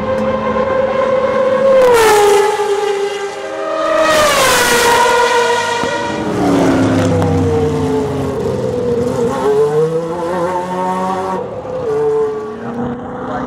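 Race car engines running hard on the circuit as cars pass close by. The engine pitch drops sharply twice in the first five seconds, stays low for a few seconds, then climbs again as they accelerate away.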